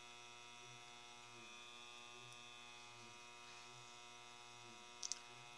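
Near silence: a steady low electrical mains hum, with one brief faint click about five seconds in.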